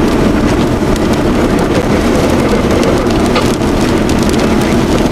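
Steady vehicle noise with a low rumble, and scattered sharp ticks of rain hitting the vehicle.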